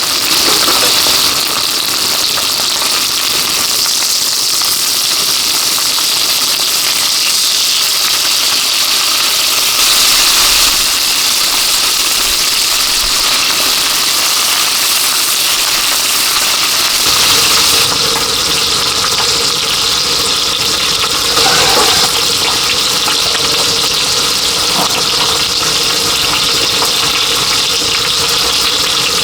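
Heavy rain pouring steadily, a dense loud hiss. About 17 seconds in, a lower rumble with a steady hum joins it.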